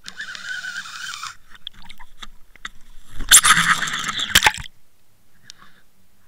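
Water rushing against an underwater action camera's housing, then a louder second and a half of splashing and knocks about three seconds in as the camera is handled at and above the surface.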